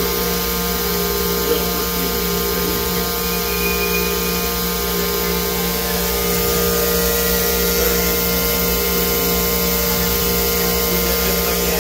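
OKK VP400 five-axis vertical machining centre milling a part on its trunnion table: a steady spindle whine made of several held tones over the even hiss of the end mill cutting.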